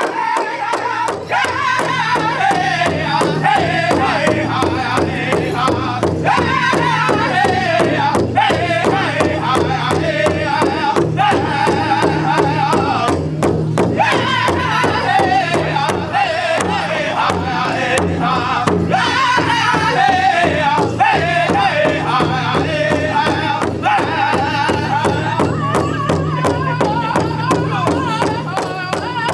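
Powwow drum group singing around a big hide-headed drum: several drummers strike a steady, even beat together with padded sticks while the men sing high-pitched, sliding lines in unison over it.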